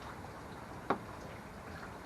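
A single sharp click about a second in, from handling the plastic interior trim of a car door, over a faint steady hiss.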